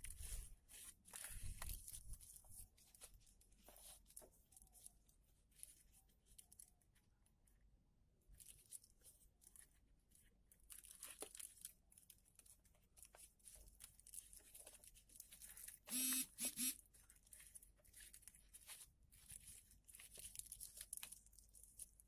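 Faint rustling and crinkling of foil-backed origami paper being folded and pressed flat by hand, with a brief two-part squeak about three-quarters of the way through.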